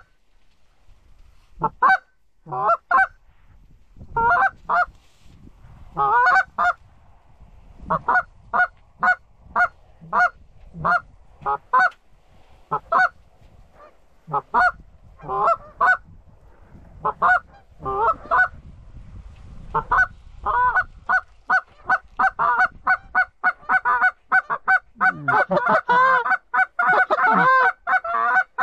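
Canada goose honks: single and paired honks about every second, quickening about two-thirds of the way through into rapid, overlapping honking.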